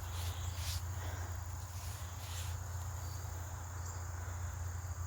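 Insects, crickets, trilling steadily in a high, continuous drone over a low steady rumble, with a couple of soft rustles.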